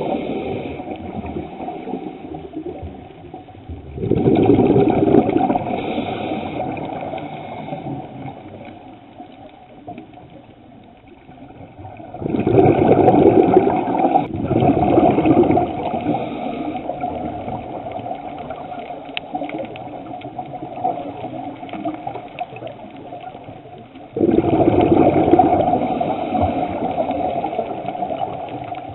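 Scuba diver's exhaled bubbles from the regulator, heard underwater: a burst fading at the start, then three more about 4, 12 and 24 seconds in, each starting suddenly and dying away over several seconds.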